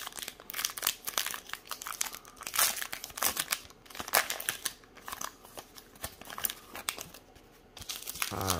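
A trading-card pack wrapper crinkling and tearing as it is ripped open by hand, with irregular bursts of crackle throughout.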